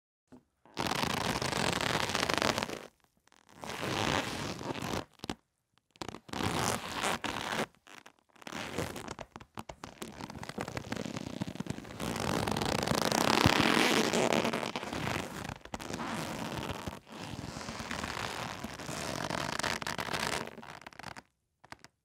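Rope sound effects: a series of takes of rope being handled, each a second or two of rough noise with short silences between, then a longer unbroken take from about nine seconds until near the end.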